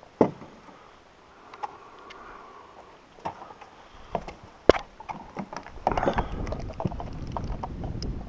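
Handling noise in a small aluminium jon boat while a caught bass is unhooked with pliers: scattered sharp clicks and knocks, the loudest a little under five seconds in, then a denser run of rattling and rumbling from about six seconds in.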